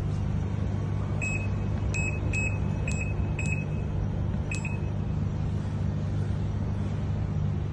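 Top-load washing machine's control panel beeping six times at irregular spacing, like buttons being pressed, over a steady low hum.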